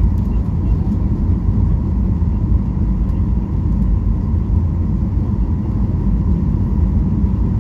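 Cabin noise inside a Boeing 737-800 on approach with flaps extended: a steady low rumble of the CFM56 engines and the airflow over the fuselage, with a faint steady tone above it.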